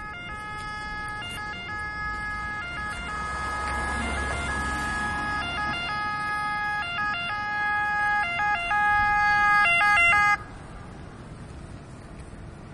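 Ambulance's two-tone siren alternating between two pitches, growing louder as it approaches, then cut off suddenly near the end.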